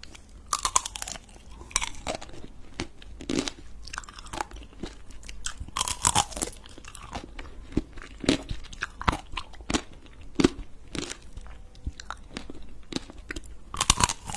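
Close-miked eating: crunchy bites and chewing, with sharp crackling crunches coming every half second to a second and louder clusters of bites near the start, the middle and the end.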